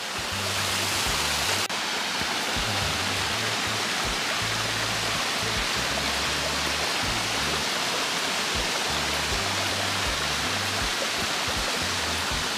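Steady rush of a waterfall splashing into a shallow pool, with background music whose low bass line moves in steps underneath.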